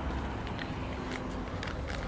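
Quiet outdoor background: a steady low rumble with a few faint footsteps.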